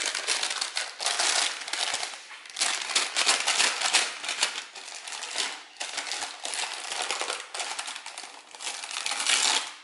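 A small paper gift bag crinkling and rustling in a toddler's hands as he handles it and pulls at its top to open it, in uneven spurts.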